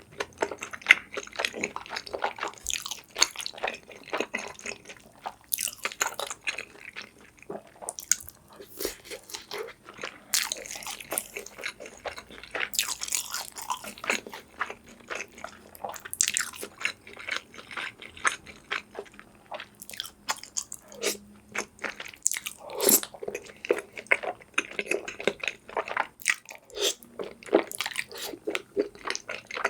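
Close-miked eating sounds: a person biting and chewing food, with frequent short crunches and chewing noises coming irregularly, several a second.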